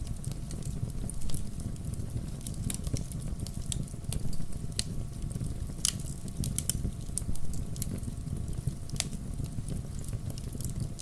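Wood campfire crackling and popping: a steady low rumble of the flames with irregular sharp snaps, a few louder pops among them.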